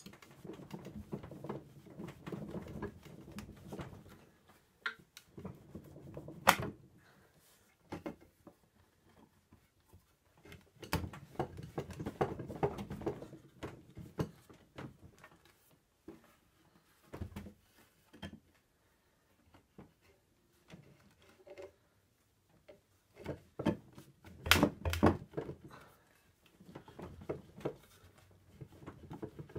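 Wooden Windsor chair being wrenched apart by hand: its loose glue joints creak and rub as the legs and stretchers are worked back and forth, with sharp wooden knocks now and then, the loudest near the end.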